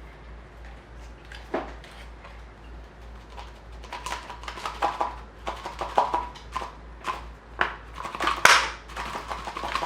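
Thick glittery putty-like slime squished by hand in its plastic container, making a run of sharp clicks and little air pops. The clicks are sparse at first, come thick and fast from about halfway, and the loudest pop is near the end.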